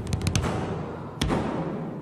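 Live percussion accompanying a shakuhachi piece: a quick flurry of light, sharp taps at the start, then one deep drum hit about a second in that rings on with a long echoing decay.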